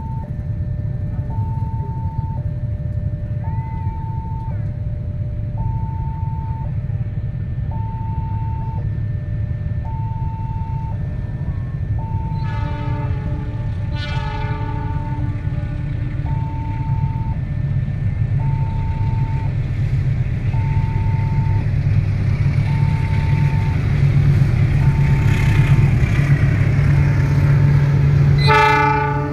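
A two-tone electronic level-crossing alarm alternates steadily while a diesel-electric locomotive approaches. The locomotive sounds its horn twice about halfway through, its engine rumble grows louder over the last ten seconds, and a short loud horn blast comes near the end.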